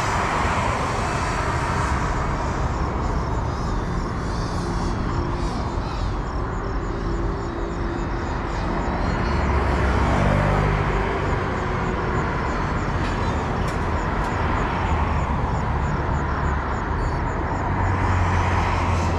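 Motors and propellers of a GEPRC Cinelog 35 FPV drone whining in flight, the pitch rising and falling with the throttle, over a steady low rumble.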